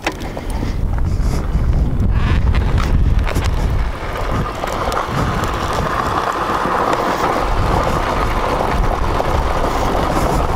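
Suzuki DRZ400S single-cylinder four-stroke engine running steadily while the bike is ridden, with wind buffeting the microphone and getting louder about halfway through.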